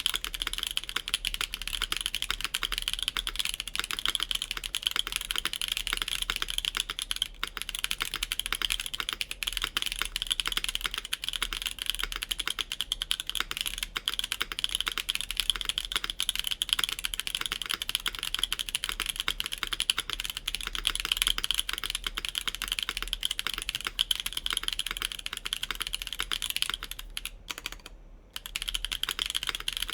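Continuous fast typing on a 65% mechanical keyboard with lubed Mode Obscura linear switches on an FR4 plate, fitted with GMK doubleshot ABS keycaps: a dense run of soft, muted keystroke clacks. There is a brief pause a little over 27 seconds in before the typing resumes.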